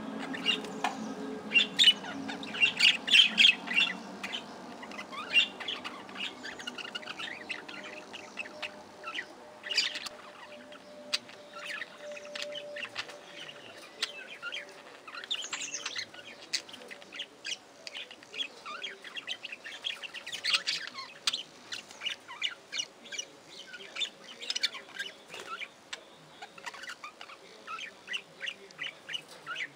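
A flock of budgerigars chattering and chirping, a steady stream of short, quick calls that is busiest and loudest in the first few seconds.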